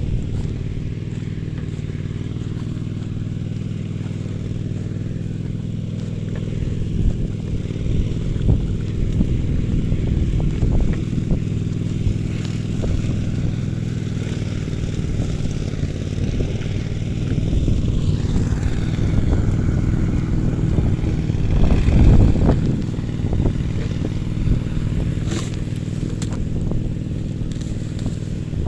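A small engine running steadily, with some louder uneven stretches in the second half.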